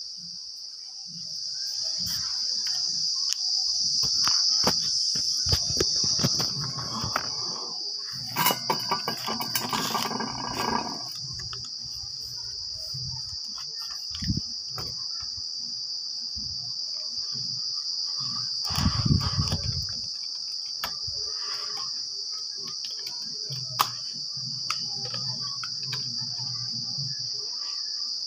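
Steady, high-pitched chorus of insects running without a break. Rustling and clicking handling noises come about a third of the way in, and a dull thump about two-thirds in.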